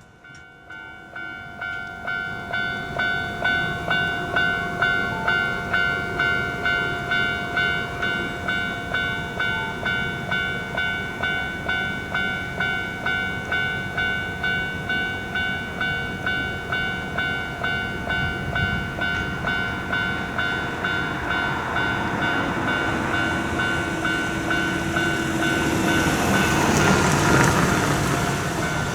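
Japanese level crossing warning bell ringing its repeated 'kan-kan' in a steady rhythm, fading in over the first couple of seconds. In the last third an approaching train's rumble builds beneath the bell and is loudest near the end as the train reaches the crossing.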